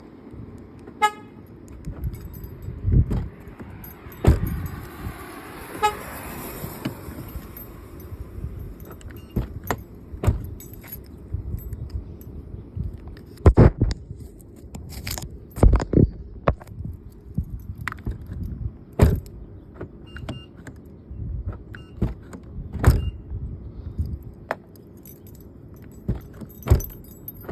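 Keys jangling with a string of sharp clicks and thumps from a 2020 Nissan Sentra's doors and door lock actuators as the locks are tried out after an actuator replacement.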